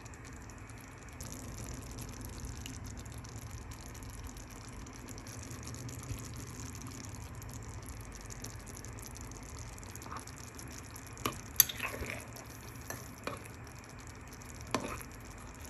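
Fava bean and tomato stew simmering in a clay pot over a gas flame, a steady low bubbling hiss. A few sharp clicks of a spoon against the pot come between about eleven and fifteen seconds in.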